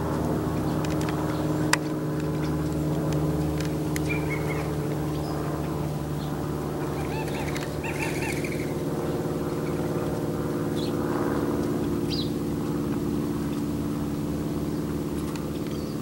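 California quail giving their woodpecker-like call, a quick run of short notes about seven to eight seconds in, the call quail give when the coast is clear. Under it runs a steady low mechanical hum, louder than the birds.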